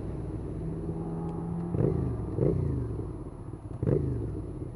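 Suzuki SFV650 Gladius V-twin engine through an IXIL aftermarket silencer, running under way. It is blipped sharply three times, each rev jumping up and then falling away, with a steady running note in between.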